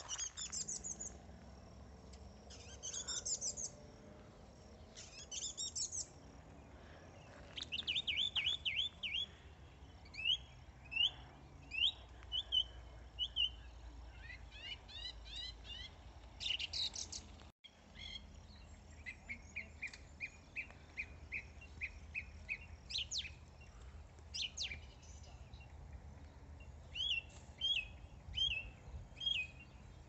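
Song thrush singing: clear, varied phrases, each one repeated two to four times in quick succession before it moves on to the next.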